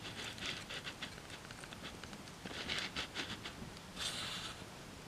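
Fire crackling inside a metal burn drum: clusters of quick, sharp snaps and pops, with a brief hiss about four seconds in.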